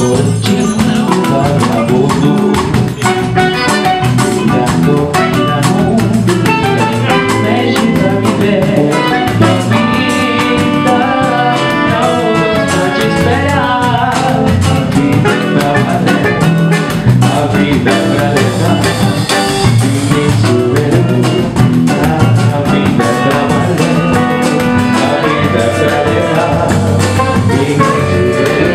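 Live samba played by a small band: saxophones playing over guitar, electric bass, drum kit and percussion.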